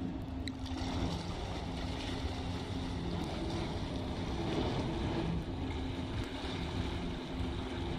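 Tugboat's diesel engine running under way with a steady low drone, mixed with wind noise on the microphone.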